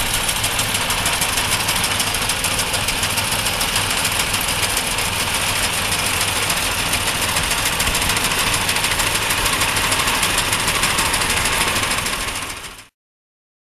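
Small engine of cranberry harvesting machinery running steadily with a rapid even beat, then dying away to silence near the end.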